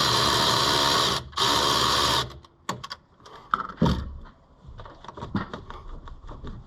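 A power tool runs loud and steady, drops out briefly about a second in, then cuts off about two seconds in. Scattered clicks and clanks of hand tools and loose parts follow.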